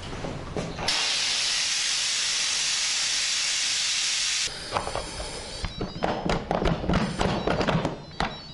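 Electric pressure cooker venting steam through its release valve once the rice is cooked: a loud steady hiss lasting about three and a half seconds that cuts off suddenly. It is followed by a run of clicks and knocks as the lid is handled.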